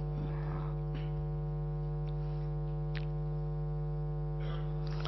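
Steady electrical mains hum with many even overtones, the buzz of a sound system, holding level throughout, with a couple of faint ticks.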